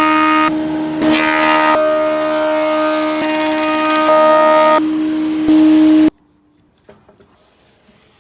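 Chainsaw engine running at high revs in a string of quickly edited clips. Its steady whine jumps slightly in pitch and level at each cut, then stops abruptly about six seconds in.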